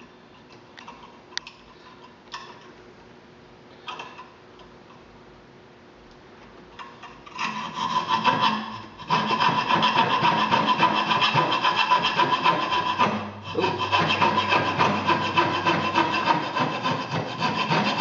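Coping saw cutting a slot in a thin wooden board with fast back-and-forth strokes, starting about seven seconds in after a few light clicks, with two brief pauses.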